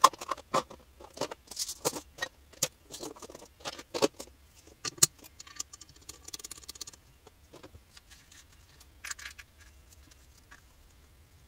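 A clear plastic parts box being handled and closed, with a small metal snap-setting die knocking about inside. A quick run of clicks and rattles fills the first five seconds, then a few scattered clicks.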